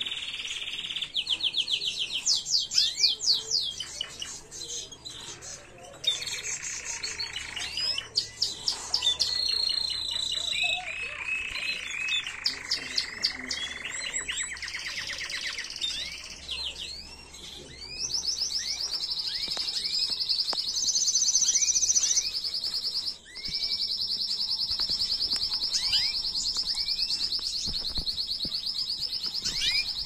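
Domestic canary singing a song of trilled tours: fast runs of repeated notes, each run at its own pitch, changing every second or two. Through the second half it holds one long high rolling trill, broken once briefly.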